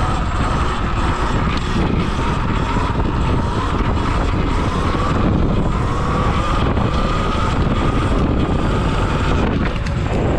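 Electric dirt bike riding along: the motor's thin, high whine wavers slightly with the throttle under heavy wind buffeting on the rider's microphone.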